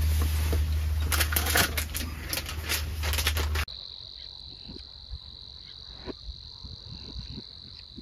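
Wind buffeting the microphone, a heavy low rumble with gusty noise, cuts off abruptly about a third of the way in. It gives way to a quiet background with a steady high-pitched insect trill.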